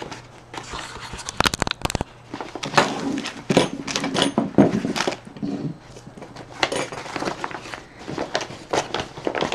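Plastic mailer bag rustling and crinkling in irregular bursts as hands rummage inside it. A few sharp clicks about one and a half to two seconds in, as small items including a metal folding spork are set down on a wooden tabletop.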